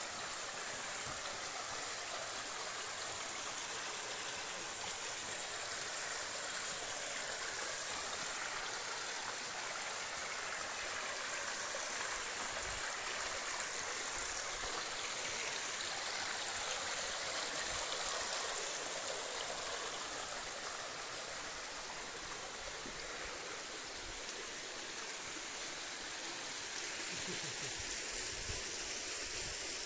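Shallow creek water rushing steadily over a smooth bedrock chute, heard close to the water.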